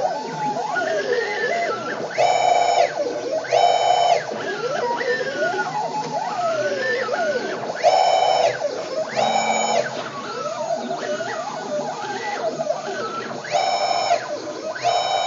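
Nema 34 stepper motors of a home-built CNC machine driving its axes through a test program: whining tones that sweep up and down in pitch as the axes speed up and slow down. Louder steady tones come in pairs about a second and a half apart, recurring every five to six seconds.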